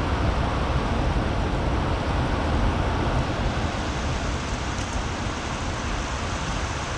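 Heavy rain and wind on a greenhouse: a steady rushing noise with a deep rumble underneath.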